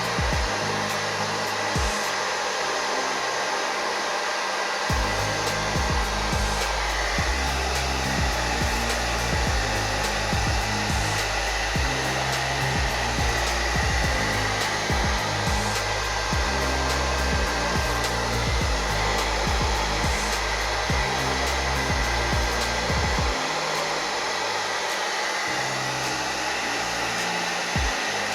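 Handheld hair dryer running steadily with an even rushing blow, drying a layer of lace wig glue from white to clear.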